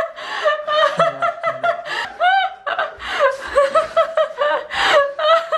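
People laughing in a run of short snickers and chuckles, with no break.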